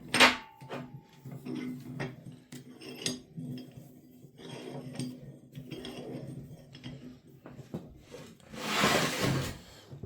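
Metal parts of an old bench vise clinking and knocking as it is taken apart, with a sharp clank just after the start and a scraping rub lasting about a second near the end.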